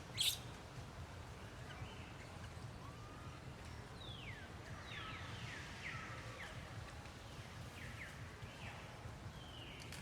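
A series of short, high-pitched animal calls, each sweeping downward, over a steady low outdoor rumble, with a sharp click just after the start.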